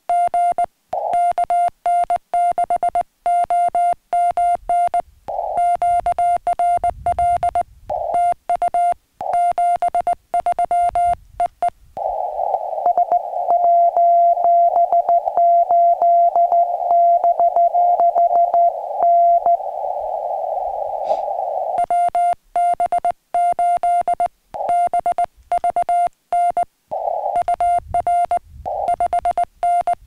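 Morse code (CW) sidetone from a portable QRP transceiver: one steady mid-pitched tone keyed in fast dots and dashes as the operator sends with a homebrew pressure paddle. For about eight seconds in the middle the tone gives way to receiver hiss confined to a narrow CW filter, with the other station's Morse reply keyed inside it; keyed sending resumes after.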